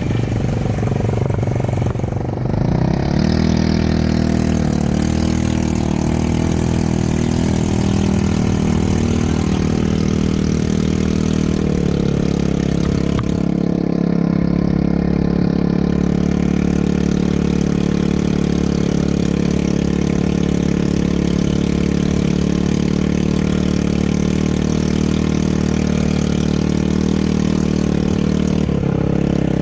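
ATV engine running steadily, its speed shifting a few times, about two seconds in, around twelve seconds in and again near the end.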